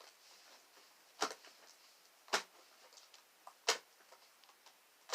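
Fluffy slime being kneaded and squeezed by hand, letting out four sharp pops at about one every second and a quarter, with faint crackles between.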